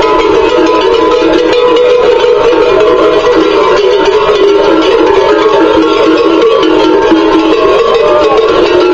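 Instrumental music playing steadily, a continuous melody.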